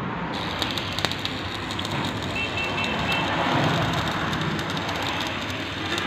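Electric arc welding: the arc crackling and sizzling steadily, starting about a third of a second in.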